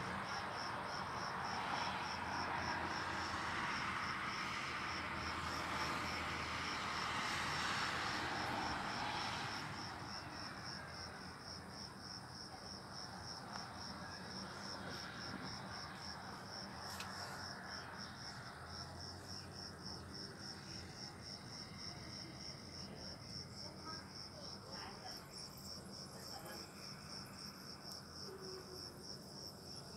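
Crickets chirping in a steady, evenly pulsed high trill. Under it, a broad hiss that dies away about ten seconds in.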